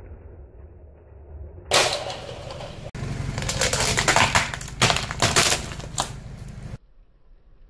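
A long stack of nested plastic cups cracking and crumpling under a car tyre, a dense run of sharp snaps and pops that stops abruptly, after a low rumble at the start.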